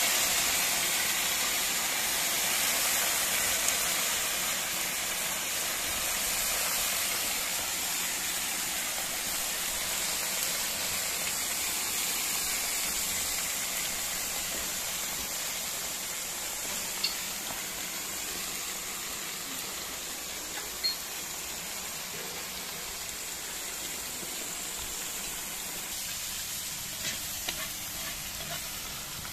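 Freshly added julienned carrots sizzling in hot oil and meat in a plov cauldron (kazan), the hiss slowly getting quieter as the carrots start to cook down. A few brief clicks come later on.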